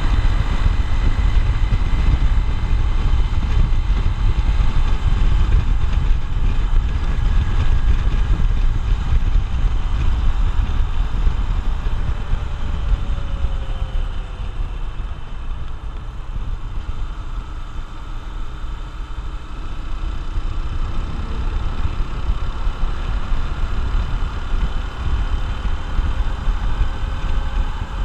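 Honda XR150L motorcycle's single-cylinder four-stroke engine running on the move, with wind rumbling on the microphone. Past the middle the engine note drops and the sound eases off as the bike slows, then the pitch climbs steadily as it accelerates again.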